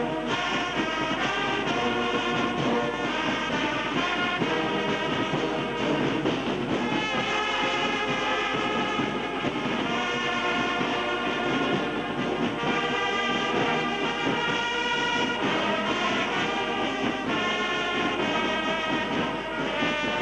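Brass band playing, with chords of held notes that change every second or two.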